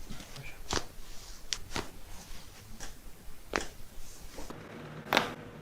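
Several sharp pops and cracks from joints being manipulated in a chiropractic spinal adjustment, spaced irregularly, with the loudest crack near the end.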